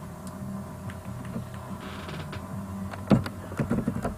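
Typing on a computer keyboard: a quick run of key clicks starting about three seconds in, over a low steady hum.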